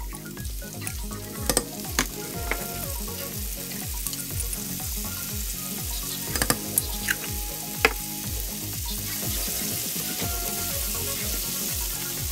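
Chopped onions sizzling in oil in a non-stick frying pan: a steady hiss with scattered sharp pops and spits of hot fat.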